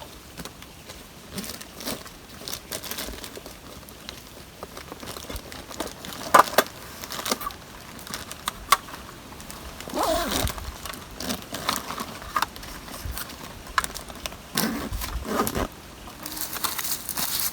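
Irregular rustling and crinkling with scattered light knocks and clicks, loudest a few times in the middle and near the end.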